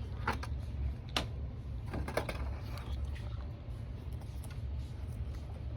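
A few scattered clicks and taps from handling a Razer Ornata V2 keyboard, spaced irregularly rather than in a typing rhythm, over a steady low hum.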